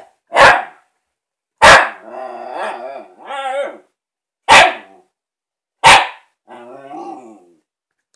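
Shiba Inu barking at a toy ball: four sharp, loud barks. After the second and the fourth bark come quieter, wavering growly grumbles.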